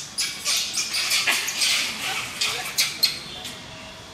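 Gray langurs screeching, a quick run of shrill cries during a fight between two troops, dying down after about three seconds.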